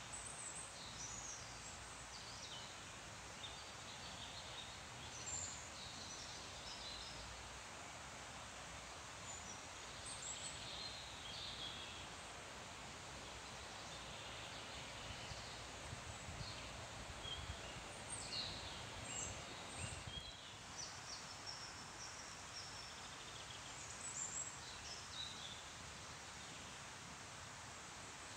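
Faint birdsong: scattered short chirps and trills from several birds over a steady background hiss.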